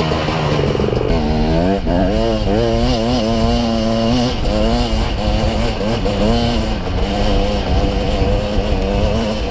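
Dirt bike engine revving up and down as the throttle is opened and eased off over and over while riding over rough ground.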